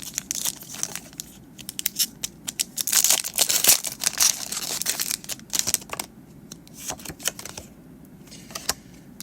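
Foil Pokémon booster pack wrapper being torn open and crinkled, with a quick run of sharp crackles and clicks that is busiest in the middle and thins out toward the end.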